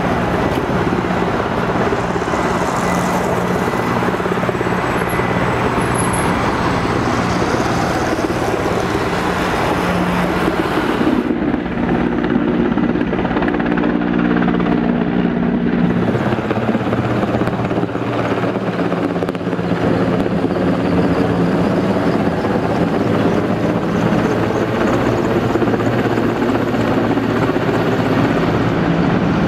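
Mi-8-type military helicopter flying overhead, its rotor and twin turboshaft engines giving a loud, steady drone. The drone changes in tone for a few seconds about eleven seconds in.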